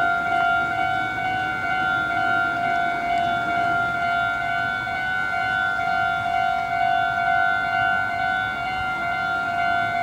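Japanese railway level-crossing warning bell ringing steadily, an electronic two-tone clang repeating without a break: the crossing is closed for an approaching train.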